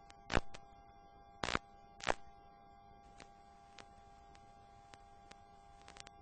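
Sharp clicks over a faint steady hum: three loud clicks in the first two seconds or so, then a few fainter scattered ones.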